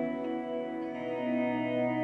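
Background music: slow ambient music of long, sustained chords, with a new low note entering about a second in.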